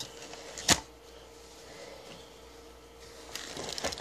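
Close handling noise from picking up a metal dagger: one sharp click about three-quarters of a second in, then a quick run of small clicks and rustles near the end.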